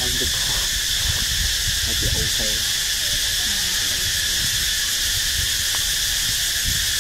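Steady high-pitched insect chorus in several bands, with a few faint, short voice-like sounds about two seconds in.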